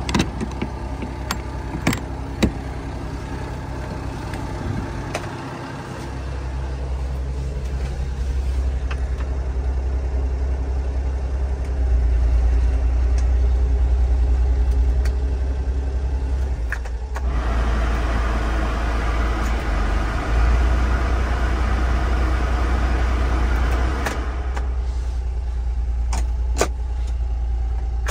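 A Honda Acty kei truck's small engine idling steadily, with a few sharp clicks near the start and near the end. About two-thirds of the way through, a steady fan-like rushing comes on over the idle.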